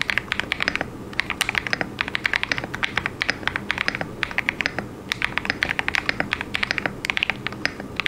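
Fast typing on a KBD67 Lite mechanical keyboard with a polycarbonate plate, plate and case foam, and lubed KTT Kang White linear switches: rapid keystrokes in runs, broken by short pauses about a second in and again around the middle.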